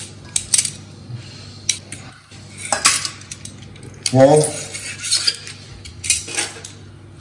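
Metal tongs and a knife clinking and knocking against a stainless steel mixing bowl and a cutting board as pieces of cooked octopus are cut and moved into the marinade: an irregular string of sharp clinks.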